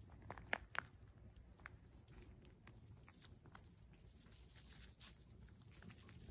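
Cat chewing fish: faint, irregular crunching clicks, the two loudest within the first second.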